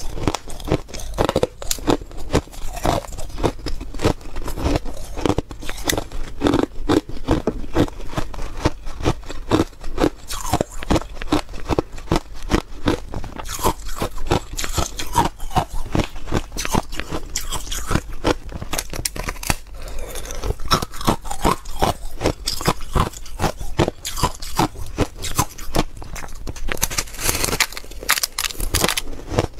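Thin ice crunching and cracking as it is bitten and chewed, a dense, irregular run of sharp crackles, loudest near the end.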